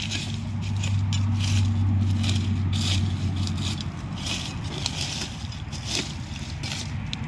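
A long-handled metal digging spade is stabbed and scraped into soil and dry leaf litter in repeated, irregular strokes, crunching through the dead leaves. A low steady hum runs under the first half and fades out about halfway through.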